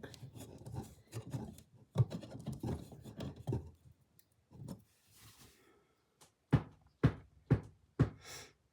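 Easel parts being handled and fitted together: clattering and rattling, then a single knock, then four sharp knocks about half a second apart near the end, as the pieces are set down or tapped into place, followed by a brief scrape.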